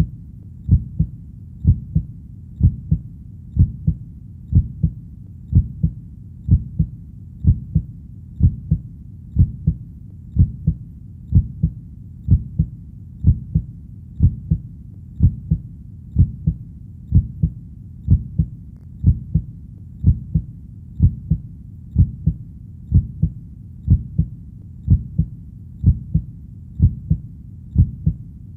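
Human heartbeat: a low lub-dub double thump repeating steadily about once a second, over a faint low background.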